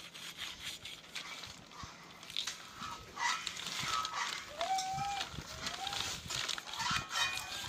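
Two short animal cries about two thirds of the way through, each rising and then holding, over soft scraping and clicking as a knife cuts a goat carcass on a plastic sheet.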